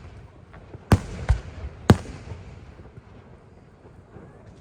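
Aerial firework shells bursting: three sharp bangs in quick succession starting about a second in, each trailing off in a rumble, then a lull.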